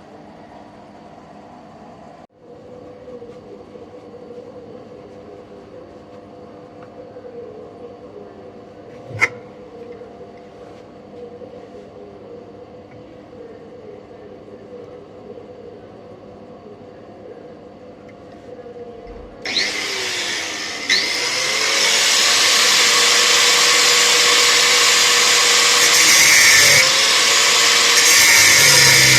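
A low, steady hum with a single sharp click; then, about nineteen seconds in, a handheld power tool starts abruptly and runs loudly on the aluminium engine block, a rough cutting noise with a wavering whine.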